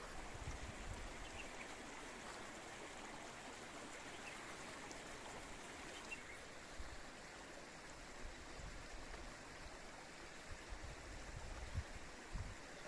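Spring water running in a steady, faint rush, with a low rumble underneath and a couple of dull knocks near the end.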